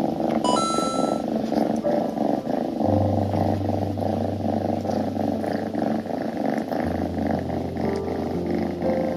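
Tuxedo kitten purring, a continuous rumble pulsing in an even rhythm.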